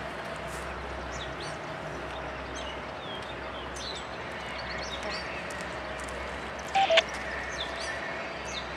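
Loaded coal hopper cars rolling past steadily, with birds chirping over the train noise. About seven seconds in, a scanner radio breaks in with a brief loud burst.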